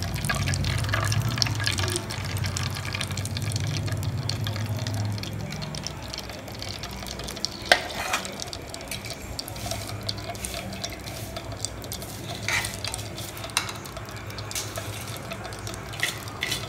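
Hot ghee poured from a steel pan into a steel bowl, a thin stream splashing for about the first six seconds. After that it is quieter, with a single sharp click about eight seconds in and a few small clicks later.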